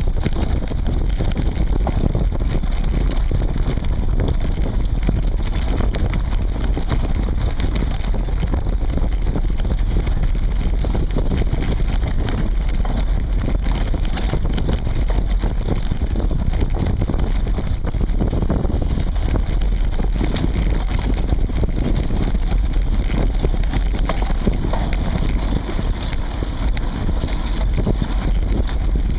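Mountain bike rolling along a dirt woodland trail, heard through a camera mounted on the seatpost: a steady rumble of the tyres and frame vibration, full of small rattles and knocks, with wind buffeting the microphone.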